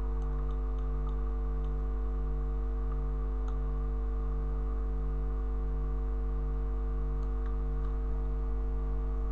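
Steady low electrical mains hum from the recording setup, with a few faint, sparse computer mouse clicks.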